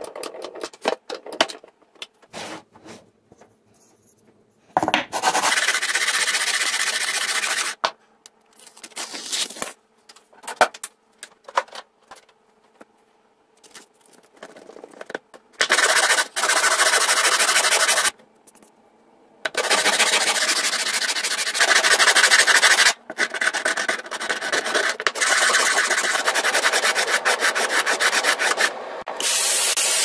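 Wooden block rubbed back and forth by hand across a sheet of sandpaper on a flat board: a rasping scrape in long stretches, with short pauses and small knocks between them. Near the end a handheld cordless vacuum starts up, sucking up the sawdust.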